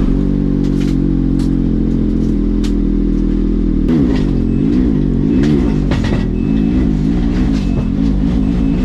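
Vehicle engine running steadily, then revved repeatedly from about four seconds in, its pitch rising and falling, with a few clicks and knocks.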